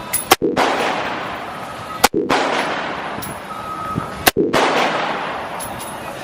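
Three single gunshots about two seconds apart, each with a long echoing tail.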